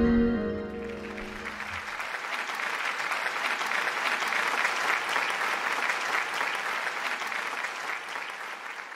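The last piano and saxophone chord dies away in the first two seconds as an audience breaks into applause, and the clapping carries on steadily.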